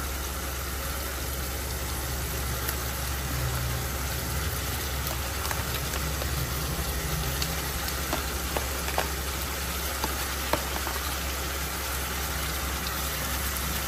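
Pan of tempe in sweet soy sauce simmering on a gas stove: a steady soft sizzle over a low hum, with a few faint clicks as shrimp go into the pan.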